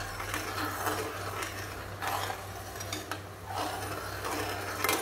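Steel spatula scraping and stirring against the bottom of a coated kadai full of boiling sugar-and-water syrup, a few strokes over the bubbling, with a steady low hum underneath.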